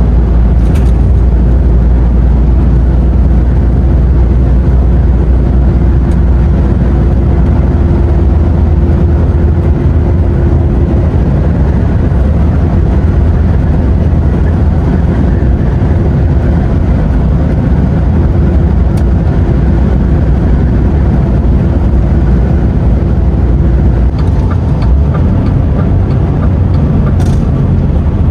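DAF XF lorry driving at steady speed, heard from inside the cab: a constant low rumble of diesel engine and road noise. A steady hum sits over it for about the first ten seconds, then comes and goes.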